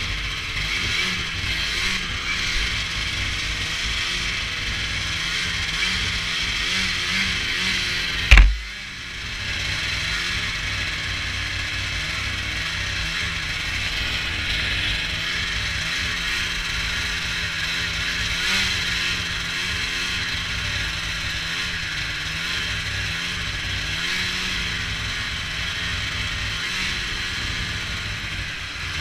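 Ski-Doo MXZ 670 snowmobile's two-stroke engine running steadily while riding, with a mechanical clatter from the machine under way. One sharp, loud thump about eight seconds in.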